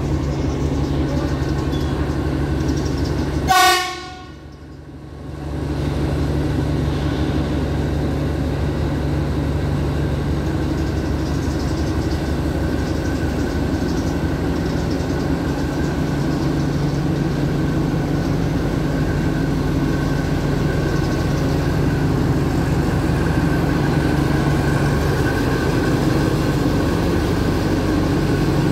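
Alsthom diesel-electric locomotive running steadily at a standstill, with one short horn toot about three and a half seconds in.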